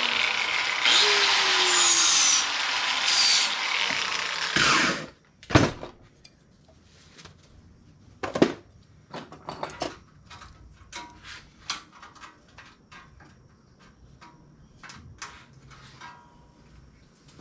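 Handheld power tool working the rusty steel of a bicycle fender to clean it for welding: a harsh hiss, its motor pitch falling repeatedly as it is pressed into the metal, stopping about five seconds in. Then scattered knocks and clicks of tools being handled and set down.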